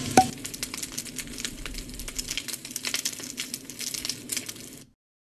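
A sharp pop, then irregular crackling and sizzling like popcorn popping in a hot pan, cutting off suddenly near the end.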